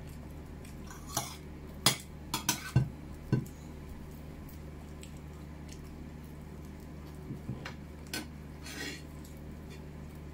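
Spoons clinking and scraping against plates as people eat: a quick run of sharp clinks in the first few seconds, a few lighter ones later, over a steady low hum.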